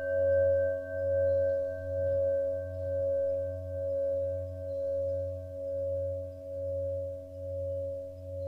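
A singing-bowl tone rings on after being struck, wavering in loudness about once a second as it slowly fades.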